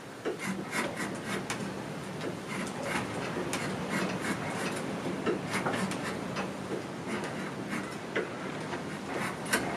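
A small hand tool scraping and shaving wood in quick, irregular strokes as a carving is shaped.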